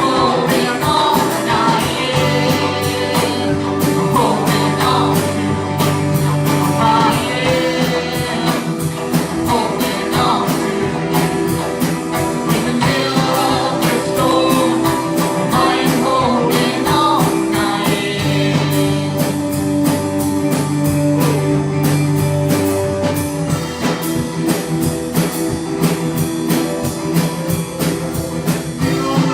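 Church worship song with a voice singing over guitar and a steady drum beat.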